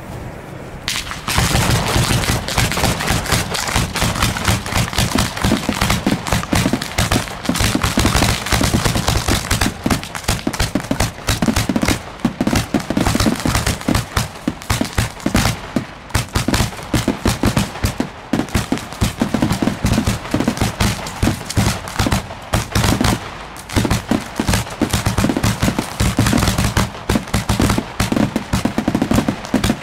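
A barrage of aerial fireworks: dense, rapid-fire bangs and crackle from many shells bursting close together, beginning about a second in and going on without a break.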